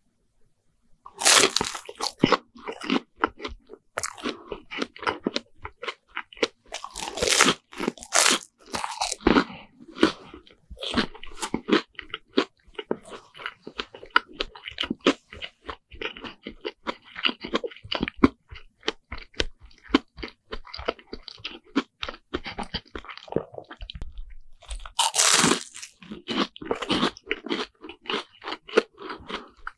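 Crunchy bites into a deep-fried bread sandwich (fried Lunch Pack) with chewing in between. Loud crunching bites come about a second in, again around seven to nine seconds, and again around twenty-five seconds.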